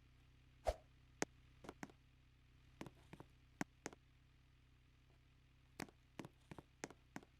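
Near silence in a small room, broken by a dozen or so short, sharp clicks and knocks at uneven intervals, with a quiet stretch in the middle.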